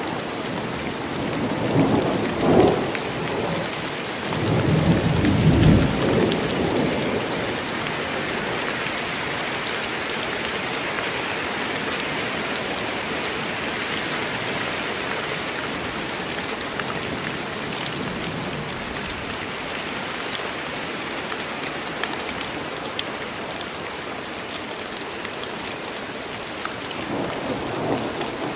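Steady rain falling in a forest, with scattered drops ticking. Thunder rumbles twice a few seconds in, the second roll longer, and a fainter rumble comes near the end.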